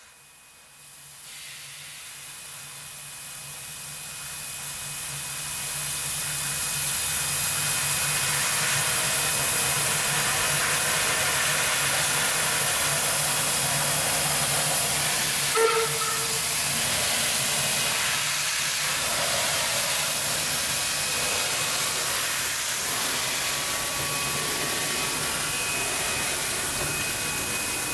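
Steam locomotive NM25 moving off with its cylinder drain cocks open: a loud steady hiss of venting steam that builds over the first several seconds, with one brief sharp sound about halfway through.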